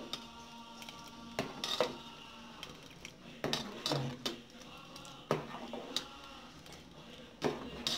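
Steel ladle knocking and scraping against the inside of an aluminium pot as soft boiled adai is stirred, with about eight light, irregular clinks.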